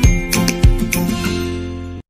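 Background music with a steady beat. In the second half a held note slowly fades out.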